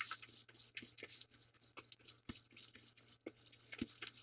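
A hand kneading and squeezing clumpy protein cookie dough in a bowl: quick, soft, rapid rustling and squishing, with two dull knocks about two and four seconds in.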